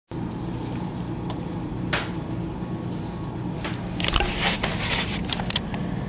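Vintage AMC box fan running: a steady motor hum with air noise from the blades, with a few sharp clicks about two seconds in and a cluster of clicks and rattles from about four seconds in.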